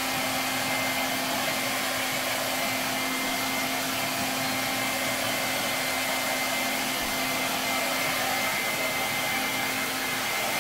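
Handheld hair dryer running steadily while drying a freshly bathed dog: an even rushing blow with a low hum and a faint high whine.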